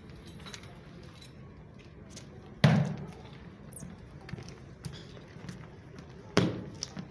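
Two sharp thuds about four seconds apart, the first heavier and deeper, over a low murmur of room noise.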